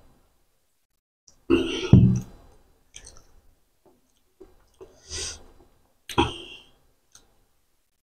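Close-up eating sounds: a loud low burp about a second and a half in, then short mouth smacks and clicks as rice and chicken liver curry are eaten by hand.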